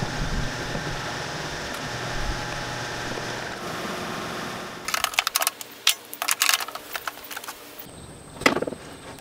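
Clattering and rapid clicks of tools and a shop-vacuum hose being handled and set up, over a steady background noise in the first half, with one louder knock near the end.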